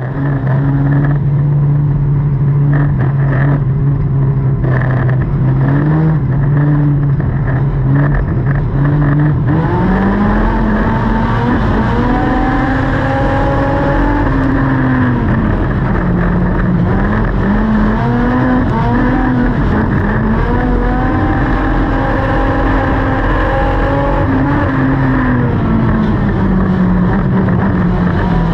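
Dirt-track race car's engine heard from inside the cockpit: a steady drone for the first several seconds, then from about ten seconds in revving up and down over and over.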